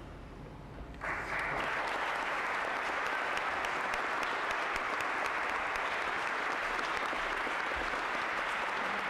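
Congregation applauding. The clapping starts suddenly about a second in and then holds steady.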